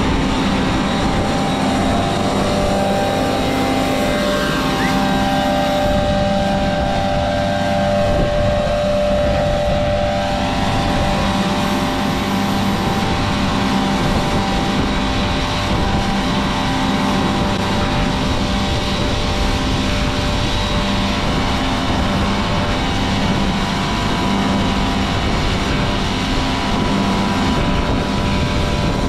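Farm tractor engine running steadily, with a steady whine of high tones over its rumble.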